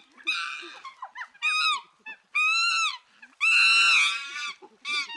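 Monkey calling: a series of about five high-pitched calls, each arching up and then down in pitch, the longest and loudest lasting about a second a little past the middle.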